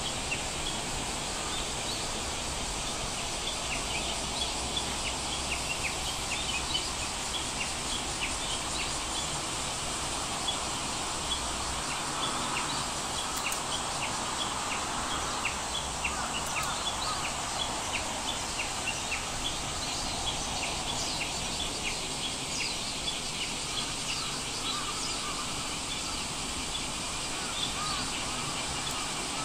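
Steady background hiss with many short, high chirps scattered irregularly through it.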